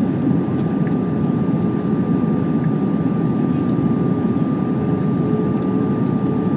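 Steady cabin noise inside an Airbus A320 in flight, heard from a seat over the wing: the drone of the engines and rushing air, with a thin steady whine above it.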